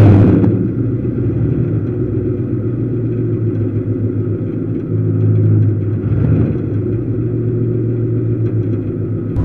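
A race car's engine running steadily at low speed, heard from inside the car. A brief loud burst comes right at the start, and the engine swells a little about halfway through.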